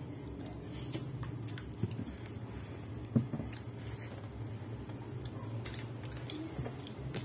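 Hands pulling soft durian flesh out of an opened spiky husk: wet squishing and scattered small clicks, with two sharper knocks about two and three seconds in, over a steady low hum.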